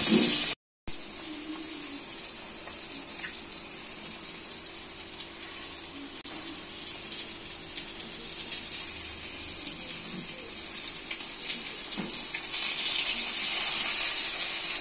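Steady rushing hiss with a faint low hum, after a brief dropout just after the start; it grows a little louder near the end.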